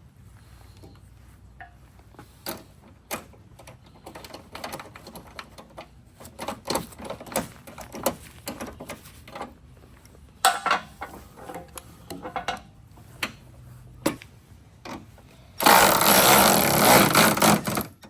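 Scattered light clicks and knocks of hand work on a pickup truck's headlight housing and its screw, then a loud, even noise for about two and a half seconds near the end.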